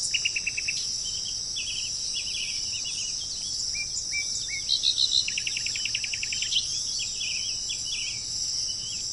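Small birds calling in tropical forest: short chirps, slurred whistles and rapid trills of a dozen or so notes a second, the longest trill about five seconds in. Behind them runs a steady, high insect drone.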